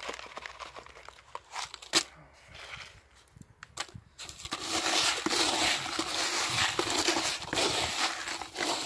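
Gritty potting soil being scooped from a bucket with a small plastic pot and poured into a terracotta pot: a few scattered clicks and knocks at first, then a steady, louder gritty rustle from about halfway through.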